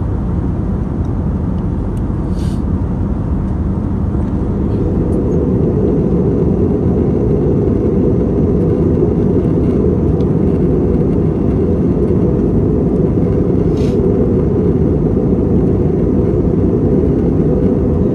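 Steady cabin noise of an Airbus A321neo in flight: a low rush of airflow and engine noise, which gets louder about four seconds in.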